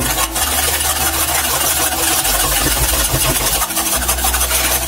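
Wire whisk beating thin besan batter in a steel pot: a continuous scraping and clattering of wire against metal and batter.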